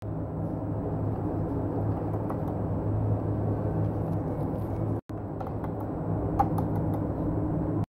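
Steady low machine hum in a tyre workshop, with a few faint light clicks; the hum drops out for a moment about five seconds in.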